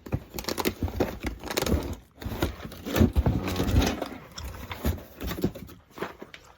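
Things being handled and rummaged through in boxes: a run of irregular knocks and clunks with rustling in between.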